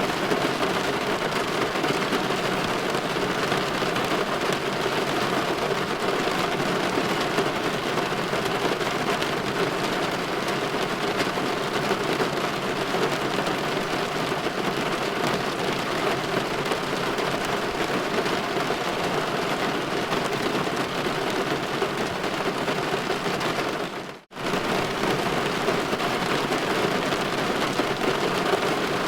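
Steady rain falling against a window pane, an even hiss and patter with no distinct thunderclaps. About five seconds before the end it drops out for a moment, almost to silence, and then picks up again unchanged.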